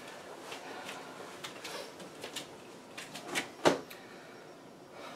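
Cloth rustling and small clicks as a heavy cotton karate uniform is straightened and its belt tightened, with one sharper snap about three and a half seconds in.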